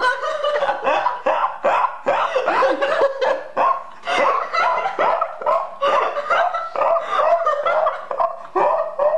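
A man laughing uncontrollably in rapid, high-pitched, seal-like bursts, several a second, set off by a fit of hiccups.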